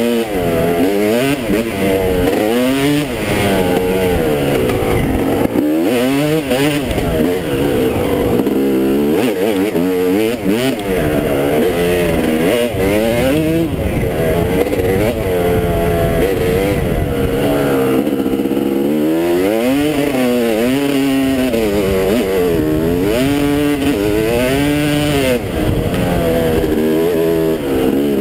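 Dirt bike engine under way, its pitch climbing and dropping over and over as the rider works the throttle and shifts gears.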